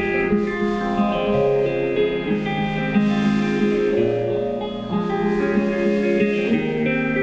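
Live band instrumental passage: electric guitar playing ringing chords over bass guitar lines, with no singing.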